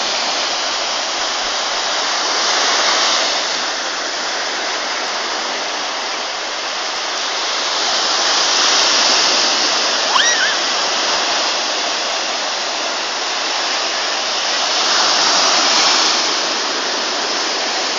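Sea surf washing onto a sandy beach: a steady rush that swells up every six seconds or so as waves break. A short high-pitched cry cuts through about halfway.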